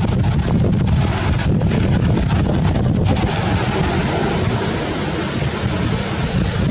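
Wind buffeting the microphone: a steady low rumble under a broad hiss.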